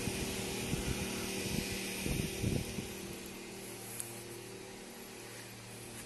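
Faint outdoor ambience picked up by a phone microphone while walking: a steady low hum, with soft low thumps of footsteps and handling during the first three seconds.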